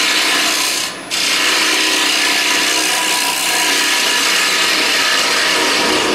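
Round carbide cutter of a hollowing tool cutting across the inside bottom of a bowl spinning on a wood lathe: a steady rasping scrape that breaks off briefly about a second in. A steady whine from the lathe runs underneath.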